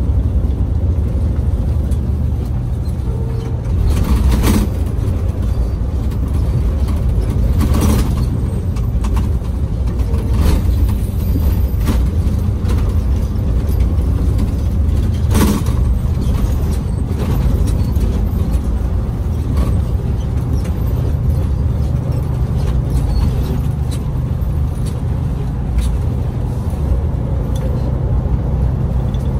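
Passenger bus engine and road noise heard from inside the cabin: a steady low drone, with a few sharp knocks, loudest about 4, 8 and 15 seconds in.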